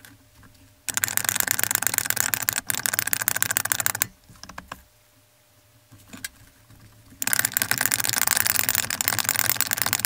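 Porta-Power hydraulic hand pump being worked to extend a freshly resealed ram: two long strokes of the handle, each a rapid dense clicking lasting about three seconds, with a quiet pause between them.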